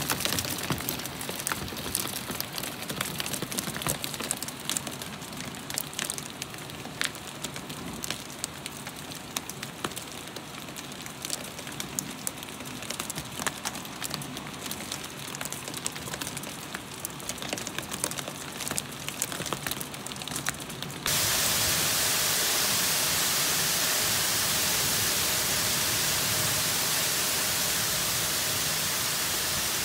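Hail falling on paving and canal water: dense sharp ticks of hailstones over a steady patter. About two-thirds of the way through, the sound cuts abruptly to a louder, even hiss of heavy hail and rain.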